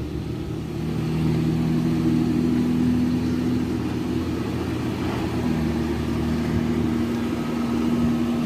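Police cruiser engines idling, a steady low hum.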